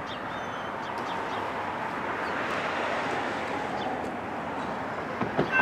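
Steady rushing rumble of a distant freight train approaching, slowly growing louder, with a few short bird chirps; the intermodal container train is led by a GE AC44C6M diesel-electric locomotive.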